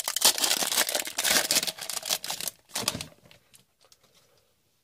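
Foil trading-card pack wrapper crinkling as hockey cards are slid out of it. It is a rapid run of crackles and clicks that dies away about three seconds in.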